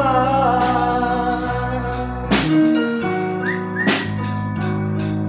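Live band playing an instrumental break in a pop ballad: sustained chords over a drum kit, with a few sharp cymbal strokes. The singer's last held note fades out in the first second or so.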